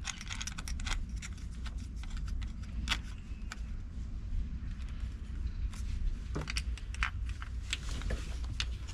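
Scattered light metallic clicks and clinks of battery cable ring terminals and nuts being handled and fitted onto a battery switch's posts, over a low steady hum.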